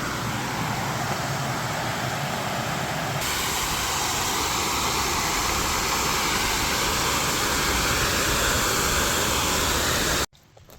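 Steady rushing noise, like running water or wind on the microphone, slowly growing a little louder and cutting off suddenly near the end.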